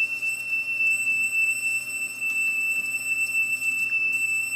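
A 3 kHz test tone played back from a cassette recorded on a Pioneer CTF500 deck fitted with its old thin drive belt. It is a single steady high tone whose level wavers rapidly: the flutter that the thin belt causes.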